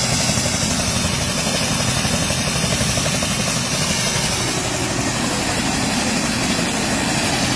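A single-engine turbine helicopter, an Airbus AS350 Écureuil, running steadily on the ground at idle with its rotor turning.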